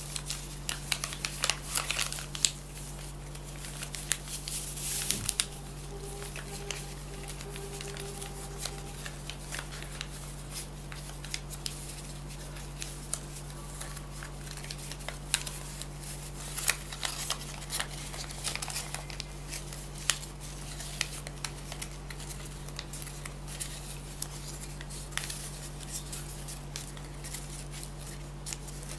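Paper being worked by hand for a paper toy: a scattering of sharp clicks and rustles, thickest in the first few seconds and again around the middle, over a steady low electrical hum.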